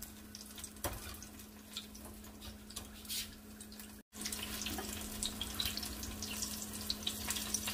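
Mirchi bajji, batter-coated green chillies, frying in hot oil in a wok: a steady sizzle with scattered crackles. It breaks off briefly about four seconds in and comes back louder and busier.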